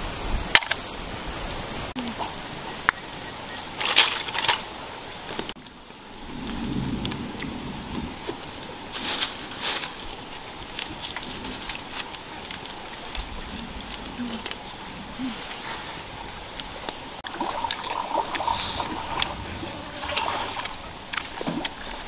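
Stream water running steadily, with scattered clicks and knocks from snail shells and sticks being handled.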